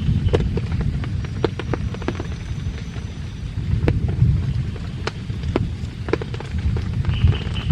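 Heavy rain: a constant low rumble with many sharp, irregular ticks of single drops striking close by.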